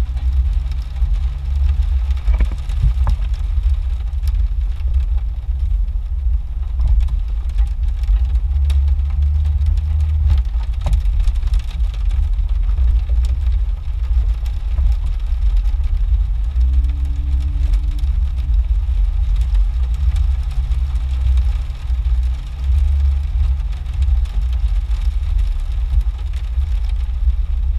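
Jeep engine running at low speed, heard from inside the cab as a steady low rumble while crawling along a muddy trail.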